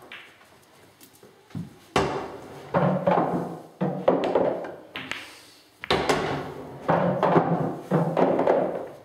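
Pool balls struck with a cue and knocking together on the table, in two runs of clattering knocks that die away, the second starting about four seconds after the first.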